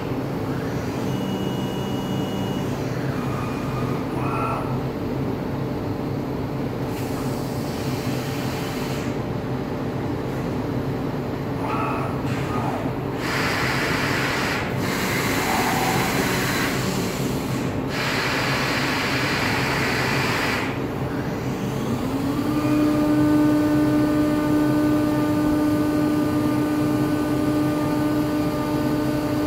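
Hermle CNC milling machine running between cuts with a steady mechanical hum. It has several spells of hiss in the middle from coolant or air spray. About 22 seconds in, a motor spins up with a rising whine that settles into a steady tone, typical of the spindle coming up to speed.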